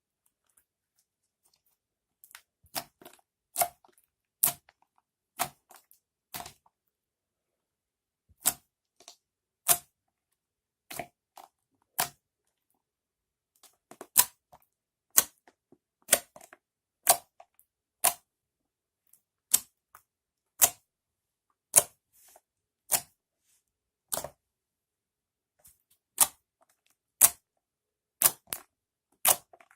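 Slime being worked by hand, giving a series of sharp pops and clicks about once a second, starting a couple of seconds in.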